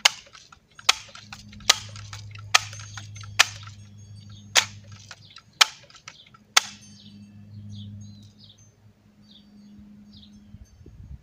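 Barra 1866 lever-action BB rifle being pumped: about eight sharp clicks, roughly a second apart, as the lever is worked to charge it with air. Faint bird chirps follow near the end, over a low steady hum.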